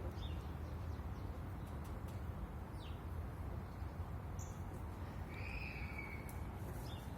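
Bird calls in the open air over a steady low background rumble: a few short, faint chirps, and one longer, steady call about five and a half seconds in.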